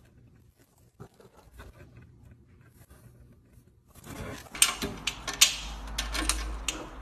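Faint scratching of a cat's claws on cardboard. From about four seconds in, sharp clicks and rattles as a cat paws at a key in the lock of its wire cage door.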